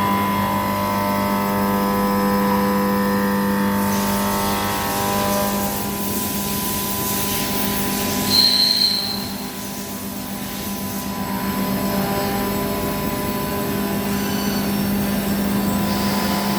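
Hermle C40 U five-axis machining center running: a steady mechanical hum made of several held tones. A rushing hiss comes in about four seconds in and fades after about eleven, and a short high whine sounds about eight seconds in.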